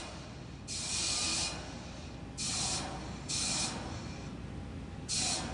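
Terran 1 rocket on the pad venting vapour: four short bursts of hissing, each starting and stopping sharply, over a steady low background rumble.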